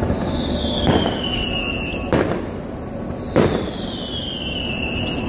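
Fireworks going off: two long whistles, each sliding down in pitch over nearly two seconds, and three sharp bangs about a second in, two seconds in and three and a half seconds in, over a steady low rumble.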